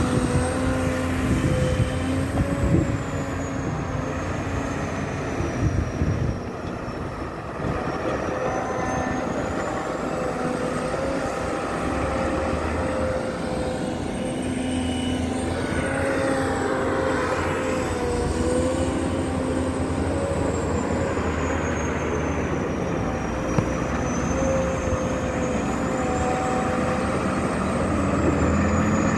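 Atlas TC-3306 crawler excavator running steadily under load while it digs soil, with a high whine that slowly falls and rises twice. A few knocks and scrapes of the bucket in the dirt in the first several seconds.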